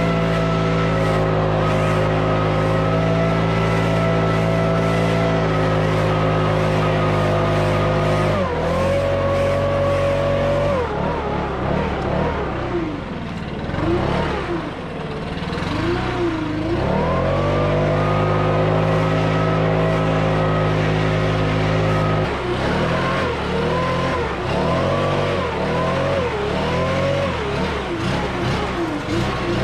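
Stihl BR600 backpack leaf blower with a 64.8cc 4-MIX engine, running at a steady high speed. About 8 seconds in the throttle is eased and the engine note drops and wavers up and down. It comes back to a steady high speed, and in the last several seconds the throttle is worked up and down repeatedly.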